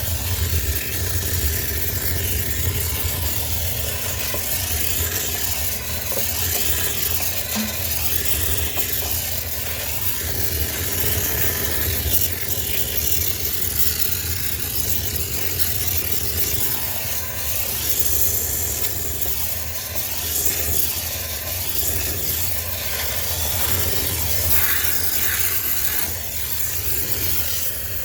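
A high-pressure cleaner spraying into a sneaker washing machine gives a steady hiss with a low hum beneath it.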